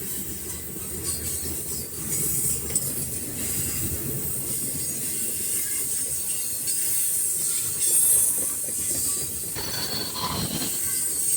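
Freight cars, mostly box cars, rolling past: a steady low rumble of steel wheels on rail with a high wheel squeal and hiss over it, and scattered clicks at the rail joints.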